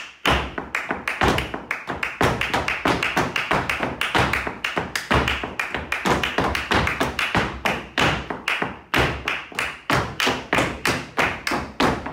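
Flamenco footwork (zapateado) by two dancers: heels and soles of flamenco shoes striking the floor in rapid rhythmic patterns, several strikes a second, with heavier stamps among them.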